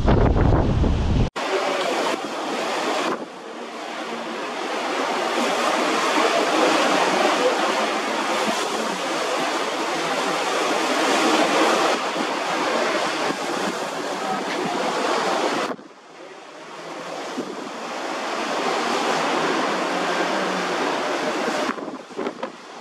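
Wind buffeting the microphone with a heavy rumble, cut off suddenly about a second in. Then a steady rush of water and wind follows, changing abruptly a few times.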